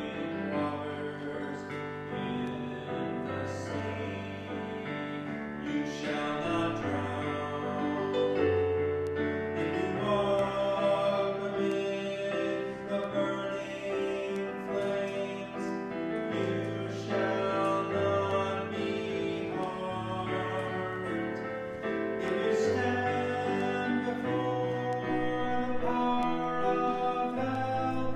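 A slow church hymn played on a keyboard, with long held chords over a stepping bass line and singing over it.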